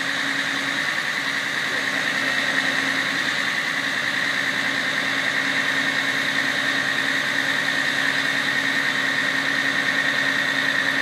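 Aerial ladder fire truck running steadily while its ladder is being lowered, with a steady engine drone and a higher steady whine over it.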